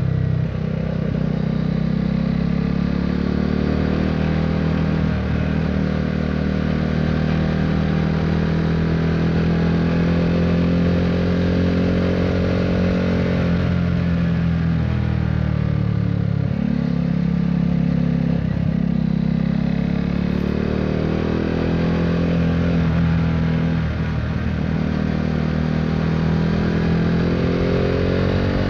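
KTM Duke 390 single-cylinder engine running through an Akrapovic Racing Line exhaust while under way. It climbs in pitch twice as it pulls and drops back in between, the drops as it shifts or rolls off.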